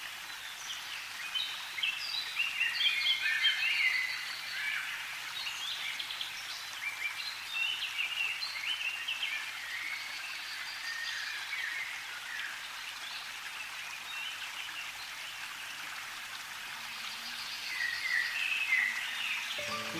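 Birds chirping and calling in many short notes over a steady hiss, a nature soundscape; the chirping is busiest in the first few seconds and again near the end.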